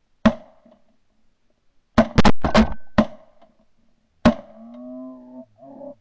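A quick series of shotgun blasts, about six sharp reports in the first four and a half seconds, two of them in close succession. After the last shot, Canada geese honking.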